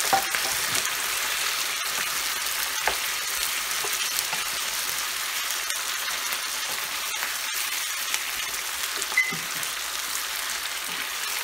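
Chicken pieces, onion and capsicum in chili sauce sizzling in a nonstick frying pan over high heat, stirred with a wooden spatula. A steady hiss with a few light knocks of the spatula against the pan.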